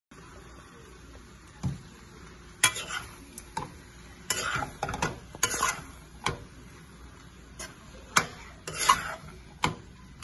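A metal utensil stirring fried rice in a pan, scraping and knocking against the pan at irregular moments over a faint steady sizzle.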